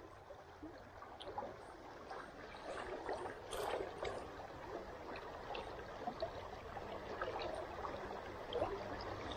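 Shallow river rippling and flowing steadily, with a few light clicks from hands handling fishing line and a soft-plastic lure.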